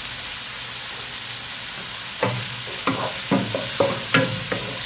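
Shrimp, garlic, shallots and chillies sizzling in oil in a nonstick wok. From about two seconds in, a wooden spatula scrapes and knocks against the pan again and again as the food is stirred.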